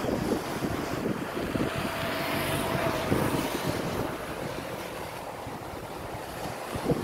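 Wind buffeting the phone's microphone in uneven gusts over the wash of the sea against the shore, with a faint steady hum for a couple of seconds in the middle.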